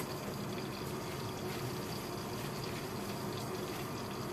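Bell pepper pieces sizzling and steaming in butter in a covered stainless steel pan: a steady, even hiss with a low hum underneath.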